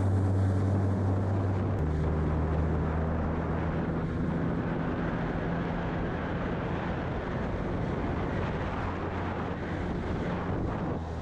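Outboard motor of a jon skiff running steadily under way, with water rushing past the hull; the engine note steps down slightly about two seconds in.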